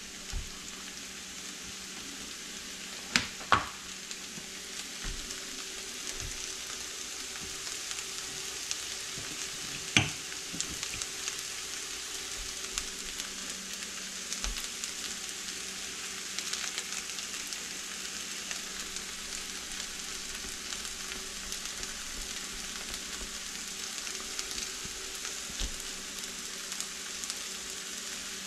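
Diced potatoes, sausage and peppers sizzling steadily in a frying pan on a glass-top electric stove, with a few sharp clicks: two about three seconds in, one about ten seconds in.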